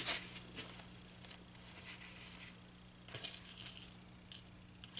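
Fabric and a styrofoam board being handled on a desk: soft, intermittent rustling and scraping with a few small clicks.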